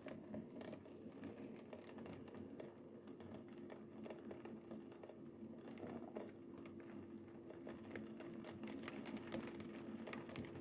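Heavy rain falling, heard faintly as a dense patter of many small drop ticks, with a faint steady hum underneath.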